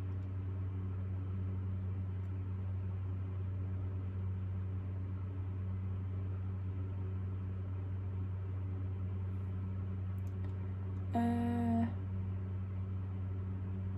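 Quiet room tone dominated by a steady low electrical hum. About eleven seconds in there is one brief voiced sound lasting under a second.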